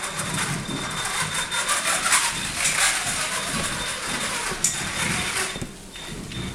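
A two-wheeled self-balancing robot's electric drive motors and gearing running as it balances and drives across a tiled floor: a steady mechanical whir with many small clicks, which dies down a little before the end.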